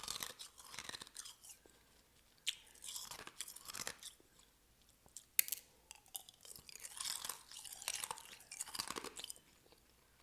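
Half-sphere ice being bitten and chewed with the teeth: crisp crunching that comes in four clusters with short pauses between them, and a single sharp crack of a bite a little past five seconds in.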